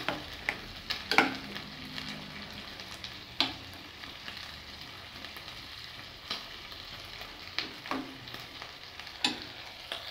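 Beef pieces sizzling steadily as they fry, with a plastic spoon stirring vegetables in an enamel skillet and knocking against it in several sharp clicks.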